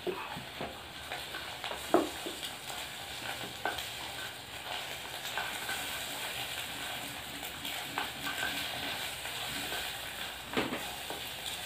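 Scrambled egg with chilli and spring onion sizzling in hot oil in an electric cooking pot, stirred with a spoon. A steady hiss, with the spoon knocking against the pot now and then.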